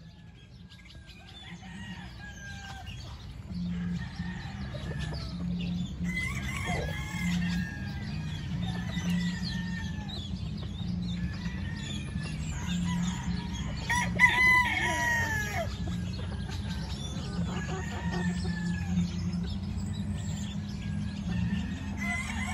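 Gamefowl chickens clucking and calling on and off, with a loud rooster crow about two-thirds of the way through, over a steady low rumble.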